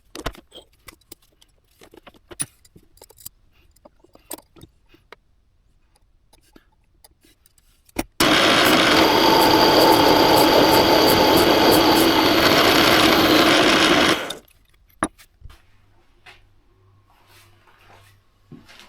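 A power tool runs steadily for about six seconds from about eight seconds in, then stops abruptly. Before and after it come scattered light clicks and knocks of workshop handling, with a sharp knock just before the tool starts.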